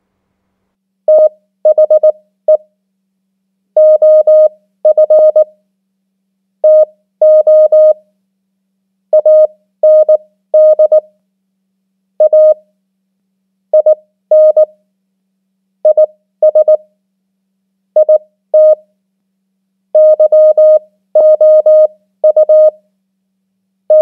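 Morse code beeps: a single pitched tone keyed on and off in dots and dashes at 18 words per minute, starting about a second in. It spells out common English words one after another: THE, OF, TO, AND, A, IN, IS, IT, YOU.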